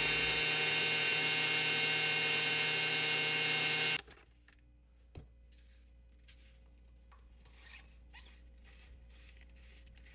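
Countertop blender motor running steadily at speed while blending a protein shake, then switching off abruptly about four seconds in. A few faint light knocks follow.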